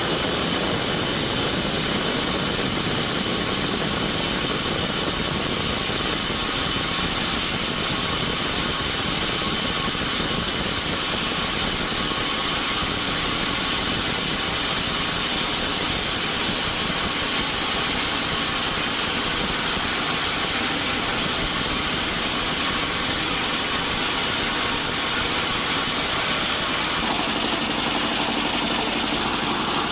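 Woodworking machinery running steadily with a continuous mechanical drone and hiss. About three seconds before the end the sound changes abruptly, losing its highest hiss.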